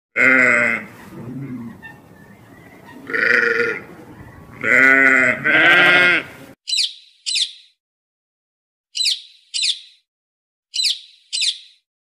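A flock of sheep bleating: four loud, wavering bleats, the last two back to back. After that come three pairs of short, high, falling chirps.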